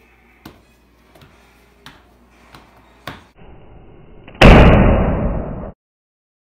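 Hands pressing and patting dough on a floured stone counter, a few soft thuds. About four seconds in, a sudden very loud harsh burst of noise starts, fades over about a second and a half and cuts off abruptly.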